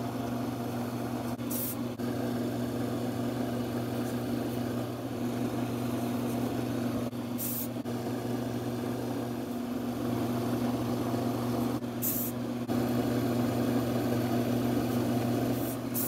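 Wood lathe running steadily with a low motor hum as it spins a pen mandrel. Four short hisses of an aerosol CA glue activator spray come at intervals, the last near the end.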